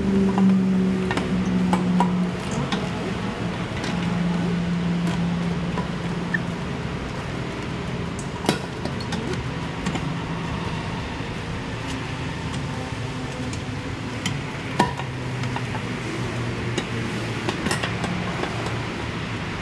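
A few sharp clicks and knocks from hands working on the plastic body panels and fittings of a Yamaha NVX 155 scooter, over a steady low hum.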